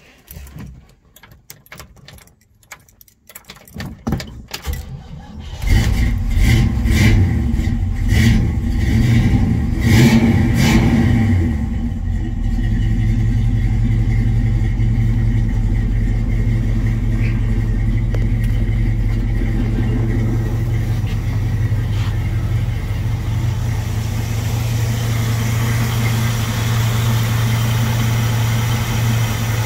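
1967 Pontiac Firebird's 326 four-barrel V8 starting about five seconds in, blipped several times over the next few seconds, then settling into a steady idle.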